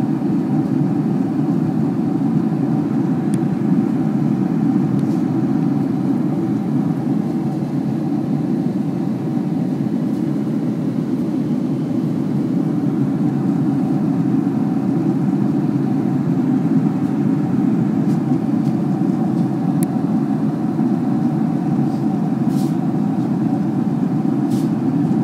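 Jet airliner cabin noise in cruise flight: the steady, even rumble of the engines and rushing air, with a faint steady hum above it.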